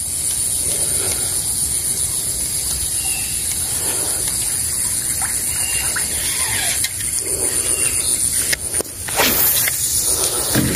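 A steady high-pitched hum over faint, even outdoor background noise, with a short swish about nine seconds in.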